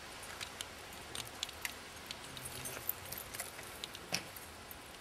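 Irregular light metallic clinks and jingles from legionary kit, such as studded belt aprons and armour fittings, with one sharper clink near the end.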